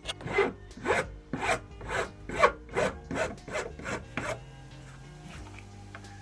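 Wood rasp shaping a hickory draw-knife handle clamped in a vise: about ten rasping strokes, roughly two a second, that stop about four seconds in.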